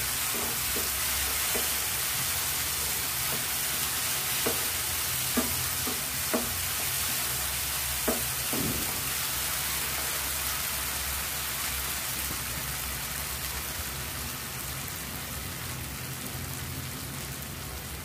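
Mushrooms and peppers sizzling in oil in a nonstick frying pan as the last of their water cooks off. A wooden spatula stirs them, knocking against the pan several times in the first half. The sizzle gets a little quieter toward the end.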